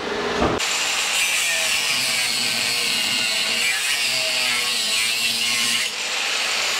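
Angle grinder cutting into a steel motorcycle side-stand bracket, a steady harsh grinding with a thin whine over it. It starts about half a second in, and just before the end the disc comes off the metal and the grinder runs on freely, the hiss dropping.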